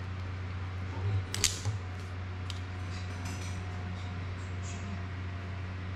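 Small clicks and taps of hands handling a plastic FPV drone frame and prop guards, with one sharp click about a second and a half in and a few fainter ones after, over a steady low hum.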